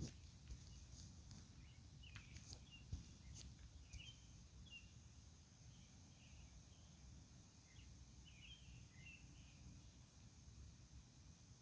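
Faint night ambience: a steady high insect drone with scattered short bird chirps, a low rumble underneath, and a few faint ticks in the first few seconds.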